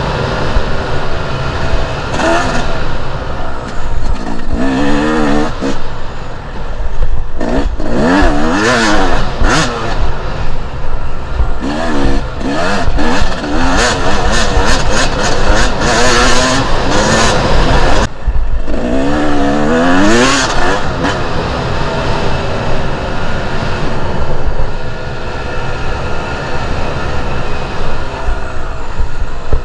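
Two-stroke enduro motorcycle engine being ridden hard offroad, its pitch climbing and dropping again and again as it accelerates and shifts. Short bursts of rough noise come in with the pulls, loudest in the middle of the passage.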